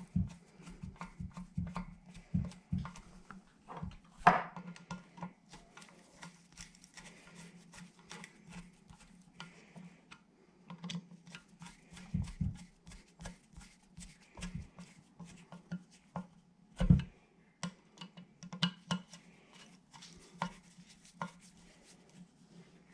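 Hand screwdriver tightening the steel screws of a magneto stator coil on a two-stroke engine case: a long run of small metallic clicks and scrapes as the blade turns in the screw heads, with a louder knock about four seconds in and another near seventeen seconds. A faint steady low hum sits underneath.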